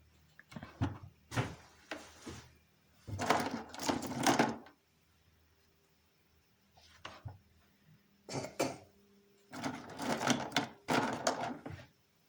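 Rustling and clattering of toys and packaging being handled, in short bursts of about a second with quiet gaps between.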